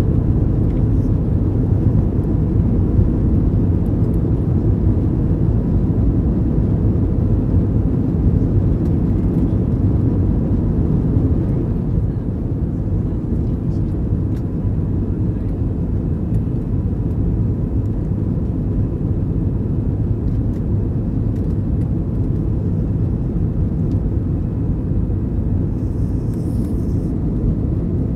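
Airbus A321 cabin noise during the climb after takeoff: a steady low roar of the jet engines and airflow heard inside the cabin. It eases slightly about twelve seconds in.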